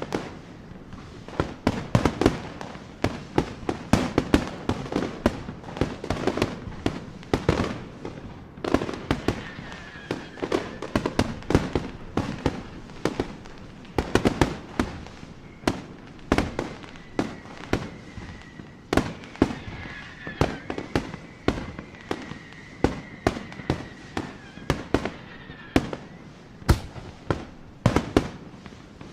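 Fireworks and firecrackers going off all around in a dense, continuous barrage of sharp bangs and cracks, several a second. A faint high whistle runs through the second half.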